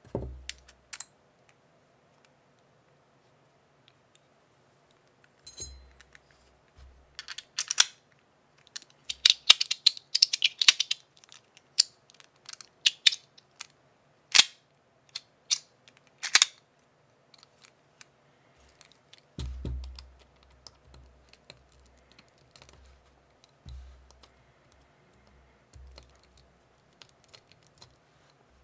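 Stainless steel gun-style fidget slider worked by hand: irregular sharp metallic clicks and clacks of its moving parts, with a quick flurry of them about a quarter of the way in and dull handling knocks in the later part.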